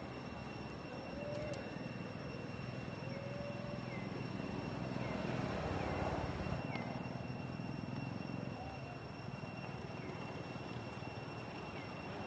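Outdoor background noise: a steady rushing sound that swells to its loudest around the middle and then eases back, over two thin steady high tones and faint short chirps.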